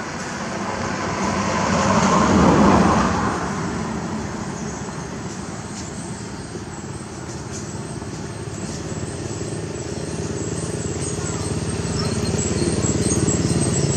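Road traffic noise: a passing vehicle's rush swells to its loudest about two and a half seconds in, then fades into a steady rumble that slowly grows louder toward the end.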